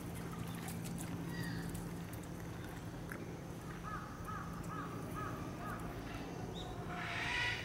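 Humboldt penguins calling: a quick run of short repeated calls about four seconds in, then a louder, harsh call near the end, over a steady low hum.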